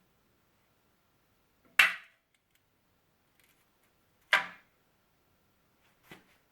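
Two sharp, loud knocks about two and a half seconds apart, each with a short ringing tail, then a fainter knock near the end.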